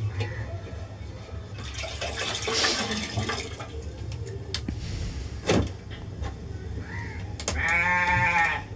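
Water splashing and trickling into a pot as a wet cotton idli cloth is wrung out, followed by a few light clicks. Near the end comes a short held voice-like tone.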